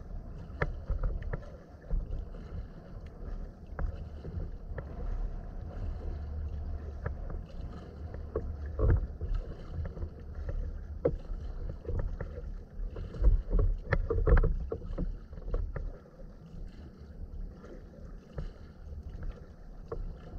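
Water sloshing and splashing around a sea kayak's hull as it is paddled, with irregular louder splashes, the biggest about nine seconds in and around thirteen to fourteen seconds in. A low rumble of wind on the microphone runs under it.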